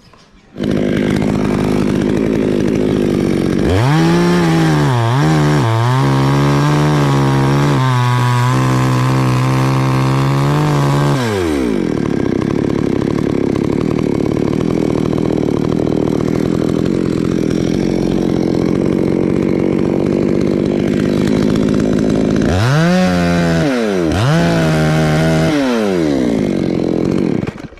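Two-stroke chainsaw cutting a coconut tree, running loud throughout. Twice its pitch climbs, holds and drops, and between those spells it runs with a duller, rougher steady sound. It cuts in suddenly about half a second in and stops suddenly near the end.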